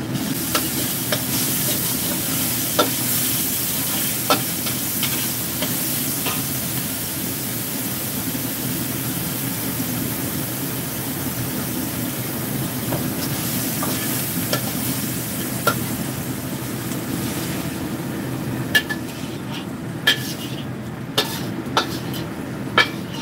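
Minced pork sizzling in a wok while a metal wok ladle stirs and scrapes it, with sharp clicks of metal on the wok. Near the end the sizzle dies down and a few louder knocks of the ladle on the wok stand out.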